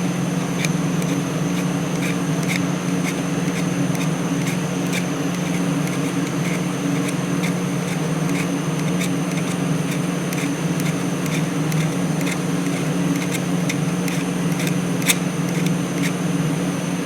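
Leatherman Wingman multi-tool's file stroked across the tip of an old screwdriver to sharpen it, a short rasping scrape about twice a second. A steady machine hum, like an air conditioner, runs underneath.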